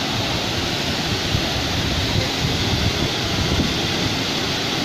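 Steady rush of muddy floodwater pouring through a washed-out railway embankment.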